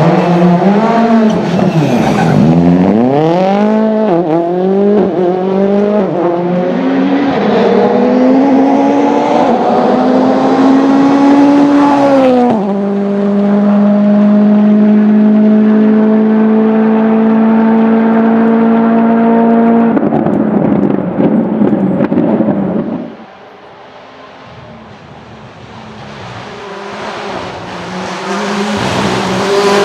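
Rally car engine revving hard, its pitch climbing and dropping with each gear change for the first dozen seconds, then held at a steady high pitch for about seven seconds. The sound breaks up, drops away sharply, and near the end another engine grows louder as it approaches.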